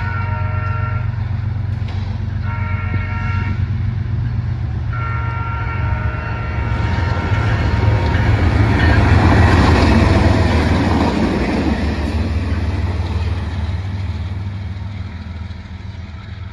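Norfolk Southern diesel locomotive leading the geometry train sounds its horn in the grade-crossing pattern: a long blast ending about a second in, a short blast around three seconds, and a final long blast from about five to seven seconds, over the steady rumble of its diesel engine. The train then passes close by, with engine and wheels on the rail loudest around nine to ten seconds in, fading as it moves away.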